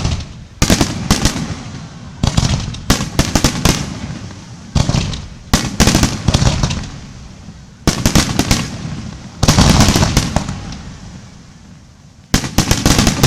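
Aerial fireworks shells bursting in quick volleys: clusters of sharp bangs and crackling, each fading away with an echoing tail, with a short lull near the end before another volley.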